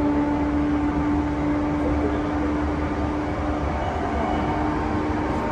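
Interior running noise of an E235-1000 series electric train at speed: a steady rumble of wheels on rail with steady traction motor and inverter tones. The strongest tone cuts out about three and a half seconds in.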